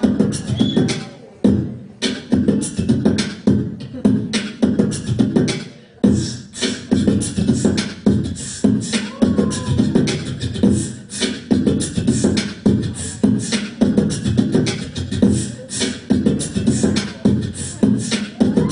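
Live vocal looping: layered beatboxed percussion of mouth clicks and hits repeating in a steady beat over a low looped vocal drone, with a few short rising vocal glides.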